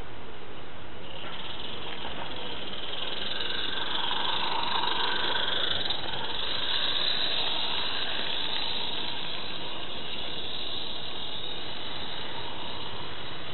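Roundhouse 'Billy' live-steam garden-railway locomotive running past with steam hissing, louder about halfway through as it goes by, then fading.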